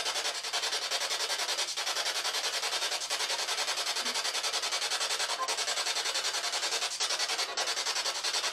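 Ghost-hunting spirit box sweeping through radio stations: a continuous hiss of static chopped evenly many times a second, with no clear voice coming through.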